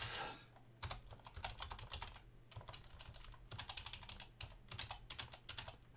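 Computer keyboard typing: irregular, scattered keystrokes as digits are entered, with short pauses between bursts.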